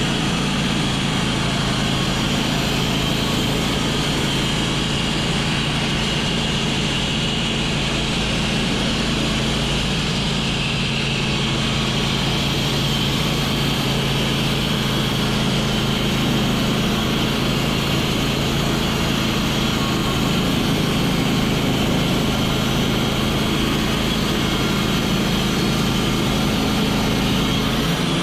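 Sawmill running steadily, its engine a low, even drone with a thin high whine above it.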